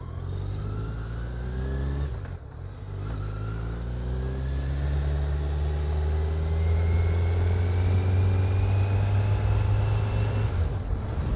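Kawasaki Z900's inline-four engine accelerating, its pitch rising. About two seconds in there is a brief drop and the pitch falls back, as at an upshift, then it climbs slowly and steadily. The engine is still in break-in and is held below 4000 rpm.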